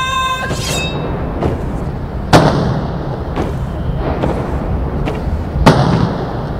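Ceremonial salute guns firing blank rounds: two loud booms about three seconds apart, each with an echoing tail, over a steady low rumble.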